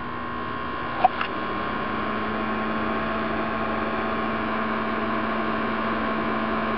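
Steady electrical hum with a higher whining tone over a hiss, from the 24-volt supply and foot-throttle controller driving a single hydrogen electrolysis cell. It steps up a little about a second in, just after two short clicks.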